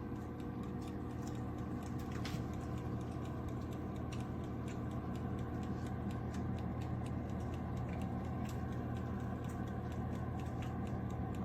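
Countertop air fryer toaster oven running: a steady hum with many small, irregular ticks and crackles.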